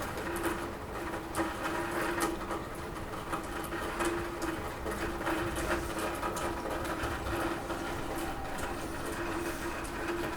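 Rain falling on a roof, with a steady hiss and many irregular sharp drip taps.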